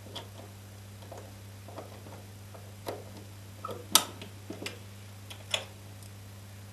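A handful of light clicks and knocks from a Master Lock 5401 metal key storage box being handled. The sharpest comes about four seconds in and another about a second and a half later, over a steady low electrical hum.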